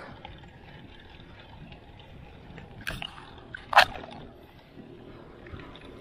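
Low, steady wind and road rumble picked up while riding a road bike, with a small click about three seconds in and a sharp, louder knock just after it.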